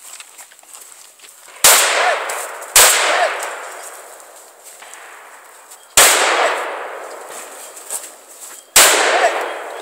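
Shotgun fired four times at steel targets, each shot loud and sharp with a long fading echo; the first two come about a second apart, the last two a few seconds later.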